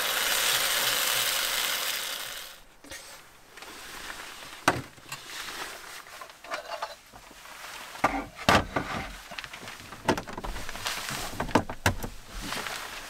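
Pasta sizzling in a small pan on a camp stove, a steady hiss that stops about two and a half seconds in. Then scattered knocks, clunks and rustling as cookware and gear are handled and packed into hard plastic cases.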